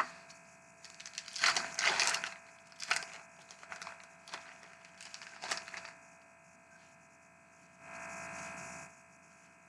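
Wrapper of a hockey card pack being torn open and the cards handled: several short crackling, rustling bursts over the first half or so, then a steady scraping rustle of about a second near the end.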